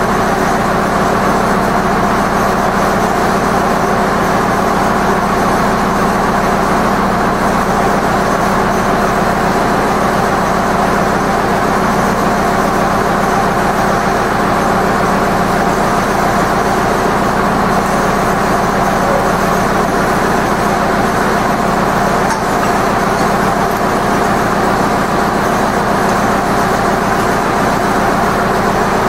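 Zetor 7245 tractor's diesel engine idling steadily.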